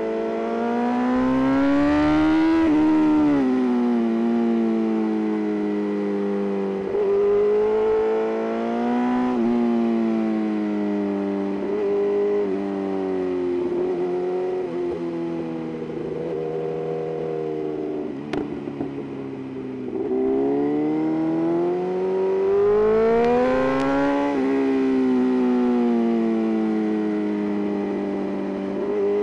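BMW S1000RR's inline-four engine and exhaust, the note repeatedly climbing under hard acceleration and dropping as the rider shifts or rolls off between corners. It eases off briefly past the middle, then pulls hard again.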